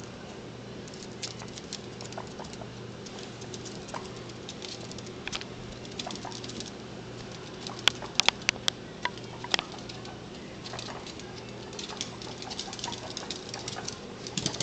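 Guinea pigs' claws pattering and clicking on a hardwood floor as they run about, with a burst of sharper clicks around eight to nine and a half seconds in.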